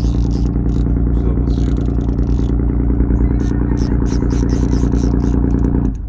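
Boat engine running steadily at idle, then stopping abruptly near the end. Short high-pitched rasping bursts sound over it several times.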